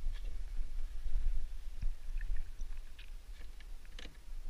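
Light clicks and taps of a fishing lure and a landed fish being handled and lifted against the side of a small boat, with a sharper knock about four seconds in, over a steady low rumble of wind on the microphone.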